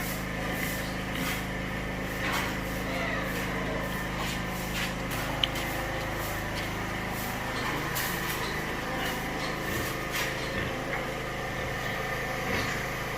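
A machine engine running steadily with a constant hum, with scattered light clicks and knocks over it.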